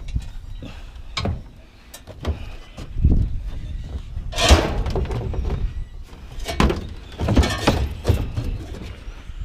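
Scrap metal being handled and loaded into a truck: a series of clunks and knocks, with a longer scraping rattle about halfway through.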